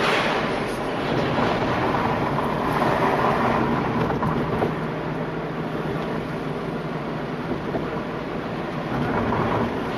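Steady road noise inside a moving car: engine and tyre rumble, swelling a little a couple of seconds in.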